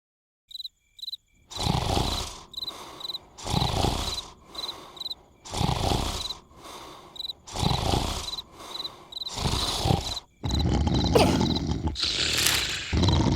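Cartoon character snoring: a loud, deep snore about every two seconds, over steady cricket chirps. After about ten seconds the snoring turns louder and more continuous, with sharp spikes.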